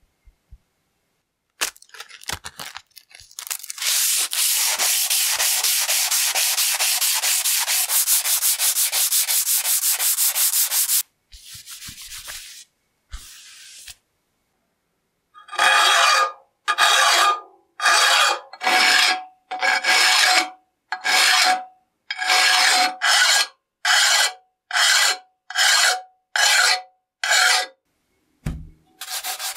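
Abrasive hand-rubbing on the flat steel soleplate of an old charcoal iron, sanding it toward a smooth finish. First comes a fast continuous rubbing for about seven seconds. After a pause come about a dozen slower separate strokes, roughly one a second, each with a faint squeaky tone.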